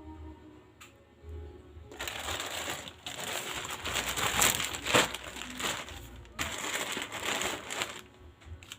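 Packaging crinkling and rustling as a parcel is opened, in two stretches of a few seconds each, with faint background music during the first two seconds.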